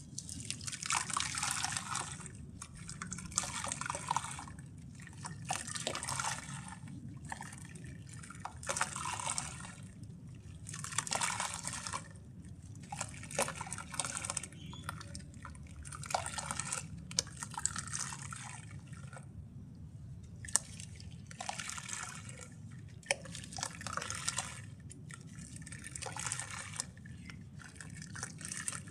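Lumps of grainy brown mud crumbling into water: a fizzing crackle with small pops, coming in short spells about every two seconds, over a steady low hum.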